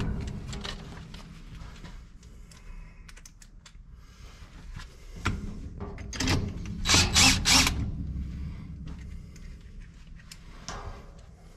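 DeWalt cordless drill, its clutch set to 9, driving self-tapping screws into a sheet-metal pan in a few short bursts about six to seven and a half seconds in. Small clicks and knocks of handling come in between.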